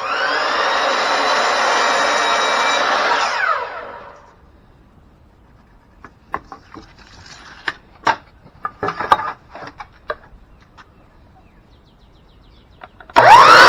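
Electric power saw starting with a rising whine and cutting a wooden board to length for about three and a half seconds, then winding down. Scattered knocks and clicks follow, and the saw starts up again near the end.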